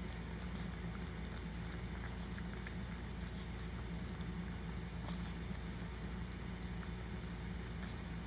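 Maltese mother dog licking and nuzzling a newborn puppy: many small, irregular wet clicks and smacks over a steady low hum.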